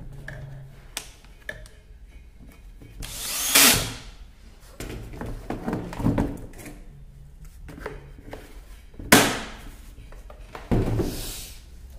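Plastic pressure-washer housing being handled on a steel workbench: irregular knocks, scrapes and clatter, with three louder sudden knocks spread through.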